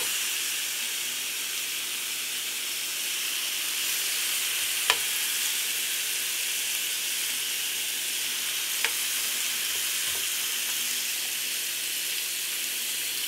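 Raw bacon strips sizzling steadily in a hot nonstick frying pan as more are laid in, with two short clicks about five and nine seconds in.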